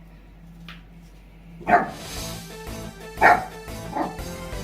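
Shiba Inu barking, three short sharp barks, over background music that starts with the first bark about two seconds in.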